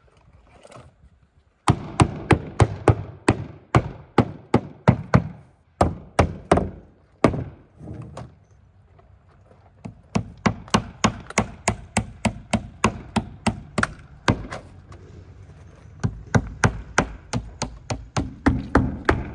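Hammer driving nails to fasten vinyl siding to the wall: quick, even blows, about three a second, in two runs with a pause of a couple of seconds between them.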